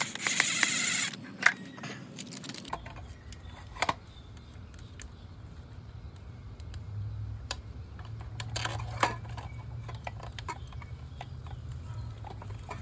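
Small clicks and rattles of screws and a weatherproof outlet box cover being handled and fastened over a GFCI outlet, with a short scratchy burst at the start and a low steady hum underneath from about three seconds in.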